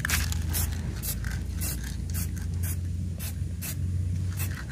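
Aerosol spray-paint can hissing in short bursts, about two a second. A steady low hum runs underneath.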